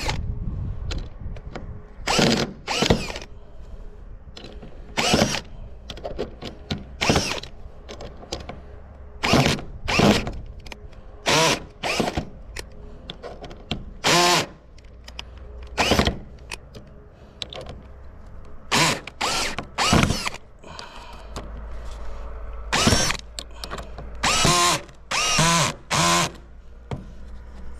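Cordless drill-driver driving long screws into a wooden batten in many short trigger bursts, the motor spinning up and stopping each time as the screw is fed in.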